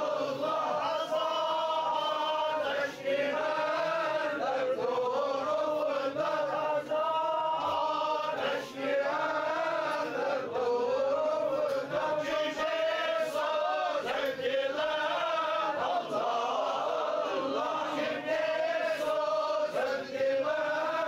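Men chanting Sufi devotional verses together in a slow, wavering melody, each line ending in the refrain 'Allah Allah'.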